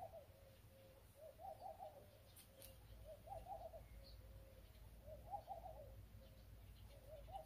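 Faint cooing of a dove, a short warbling phrase repeated about every two seconds.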